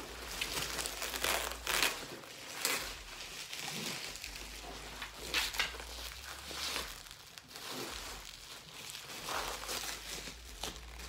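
Plastic bubble wrap crinkling and rustling in irregular crackles as it is pulled off a bottle.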